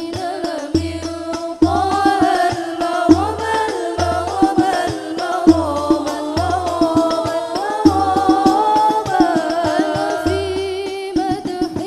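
A banjari ensemble performing sholawat: several female voices sing an ornamented Arabic melody together into microphones over terbang frame drums. The drums give low bass strokes roughly once a second, with quick slaps between them.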